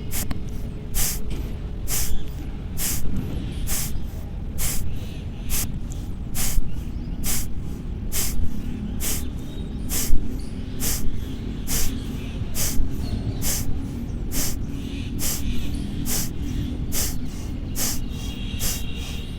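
Kapalbhati pranayama: forceful exhalations through the nose, a train of short, sharp puffs of breath a little more than one a second, the inhalations coming passively between them. Soft background music plays underneath.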